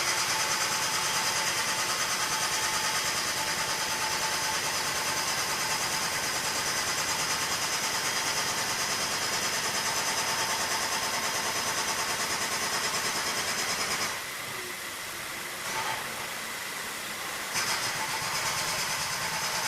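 Subaru Levorg's air-conditioning compressor running with the engine idling, a steady whine over the engine. It cuts out about fourteen seconds in and kicks back in near the end. The compressor makes no abnormal noise but engages only a few times, a cycling pattern the shop links to poor cooling.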